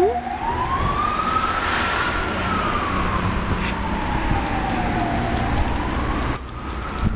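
Emergency vehicle siren wailing, its pitch rising and falling slowly, one rise and fall taking about five seconds, over a low background rumble.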